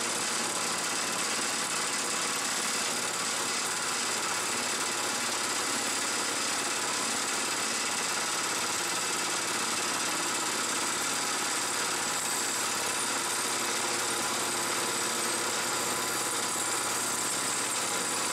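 Milling machine spindle running a large-diameter rotating cutter steadily through an aluminum plate, cutting an arc-shaped clearance; an even, unbroken machining noise.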